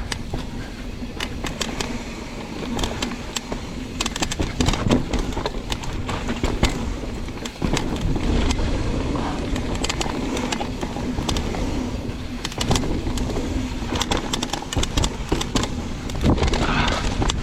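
Trek Remedy mountain bike riding fast down a dirt downhill trail: wind rumbling on the microphone over tyre noise, with many sharp clicks, rattles and knocks from the bike as it hits small drops and bumps.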